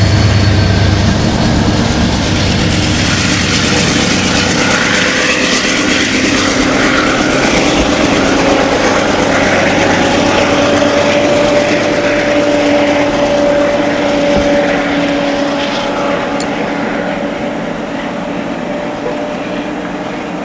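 Amtrak diesel locomotive No. 110 rushing past, its engine drone cutting off within the first second. After that comes a loud, steady rushing of wind and swirling snow in the train's wake, with a faint steady hum, fading slowly toward the end.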